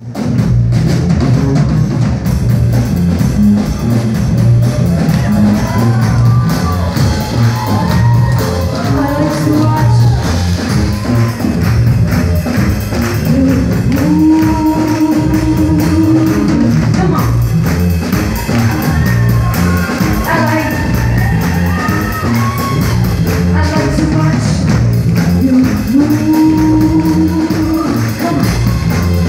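Live band performing a song: a singer over drum kit and amplified instruments. The melody has several long held notes, and the mix is loud and even throughout.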